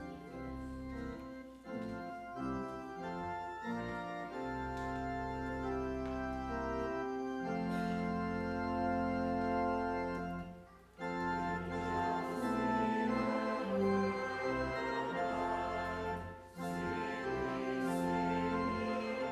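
Organ playing a hymn in sustained full chords, with short breaks between phrases about 11 and 16.5 seconds in.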